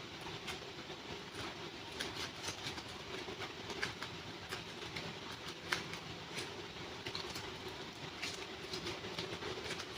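Irregular crinkles and clicks of a super clay pack being unboxed and handled, over a steady low hum.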